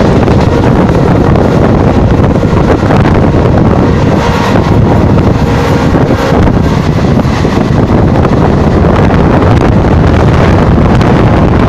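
Steady, loud wind buffeting the microphone over the rumble of a passenger train running at about 110 km/h, heard from an open coach doorway.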